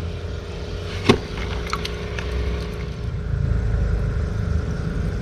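A motor running steadily, a low rumble with a steady hum over it, and a single sharp click about a second in.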